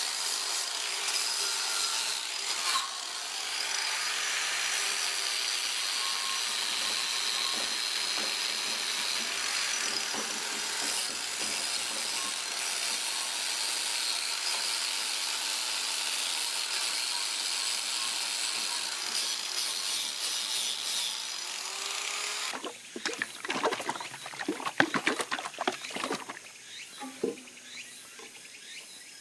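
A power tool runs steadily for about 22 seconds, abrading or brushing a surface, then stops suddenly. A scatter of knocks and clinks follows as parts are handled.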